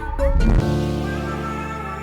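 Background music: a few short sliding notes, then from about half a second in a sustained chord held steady.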